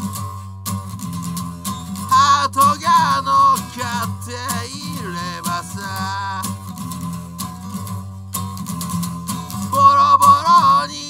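A man singing to his own acoustic guitar strumming. The voice comes in about two seconds in with long, wavering held notes, and is loudest near the end.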